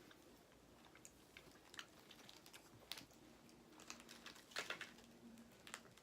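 Faint, scattered small clicks and crackles from a crumbly cracker snack being handled, with a short cluster of them about two thirds of the way in.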